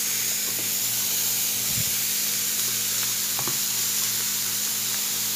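Salted chunks of raw pork sizzling steadily in a very hot, dry frying pan with no oil added, under a low steady hum.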